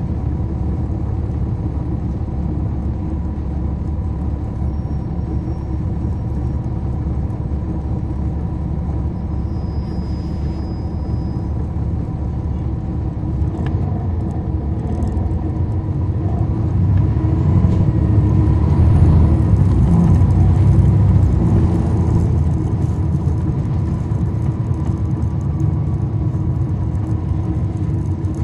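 Cummins ISL9 diesel engine of a 2011 NABI 40-foot transit bus heard from on board, running with a steady low rumble. It grows louder for several seconds past the middle, then eases off near the end.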